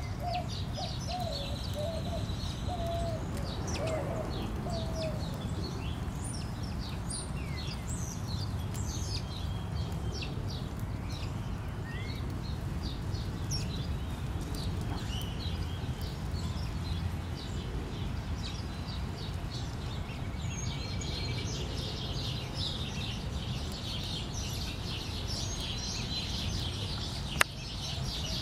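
Many small birds chirping and twittering over a steady low rumble, with one sharp click near the end.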